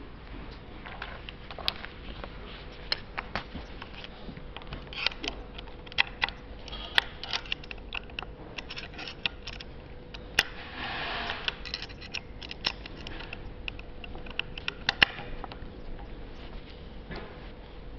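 Small metal tools (a thin rod and an L-shaped hex key) clicking and tapping against a metal joint bracket during hand assembly, irregularly throughout, with a short scraping rattle about halfway through.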